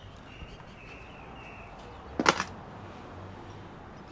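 A basin set down on a concrete slab, a short clatter with two or three quick knocks about two seconds in, over faint high chirps.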